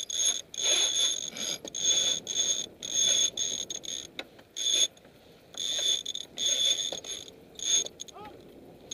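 Sailboat sheet winch spinning as a line is hauled in hand over hand, its ratchet pawls buzzing in about ten short bursts with a longer pause about halfway through.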